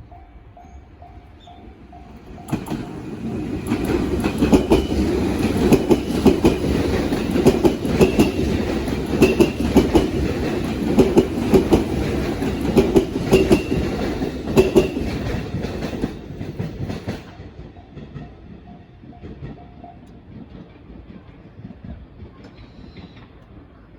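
A JR train passes over a level crossing, its wheels clattering rhythmically over the rail joints for about fifteen seconds before the sound fades away. The crossing's alarm bell rings faintly in a steady repeating pattern at the start, comes back as the train clears, and stops a few seconds later.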